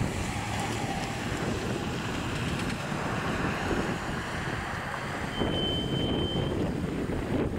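Outdoor street ambience: wind rushing on the microphone over distant road traffic. About two-thirds of the way through, a short high steady tone sounds for about a second.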